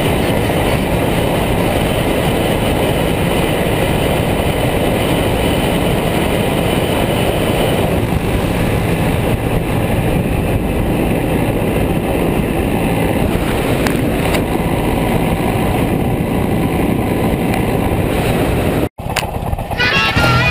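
Steady rush of wind and road noise from a motorcycle travelling at highway speed, picked up by a camera mounted on the bike. The sound cuts out for an instant near the end.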